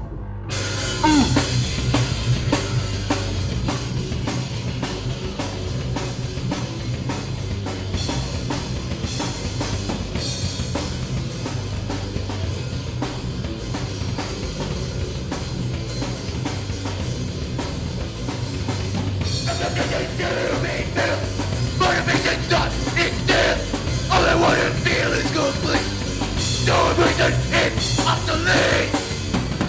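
Live hardcore band playing loud with full drum kit, heavy bass drum and distorted guitars and bass. From about two-thirds of the way in, shouted vocals come in over the band.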